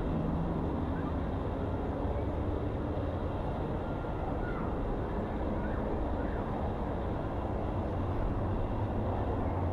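Steady low outdoor rumble, with no distinct events.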